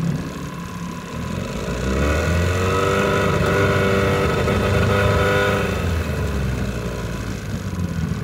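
1975 Evinrude 9.9 hp two-cylinder two-stroke outboard running under way. It is throttled up from about a second and a half in, held at the higher speed for a few seconds, then eased back down near the middle.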